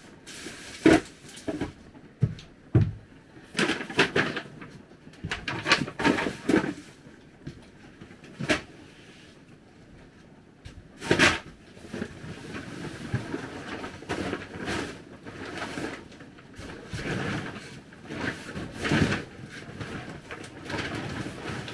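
Things being handled and stowed by hand in a small camper interior: irregular knocks, bumps and rustling of cloth and objects.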